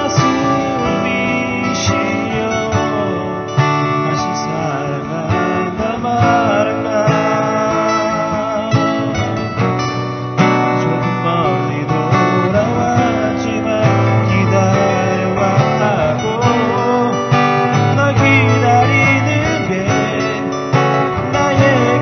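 Acoustic guitar strummed as accompaniment to a voice singing a Korean ballad, played live.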